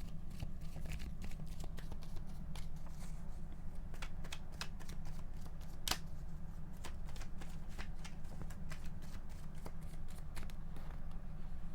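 Tarot cards being shuffled by hand: a run of irregular card flicks and snaps.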